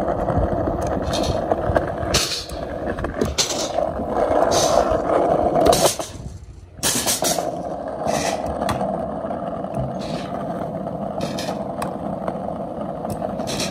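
Stunt scooter wheels rolling over concrete ramps and pavement: a steady rolling rumble with short, brighter bursts every second or so, broken briefly about six and a half seconds in.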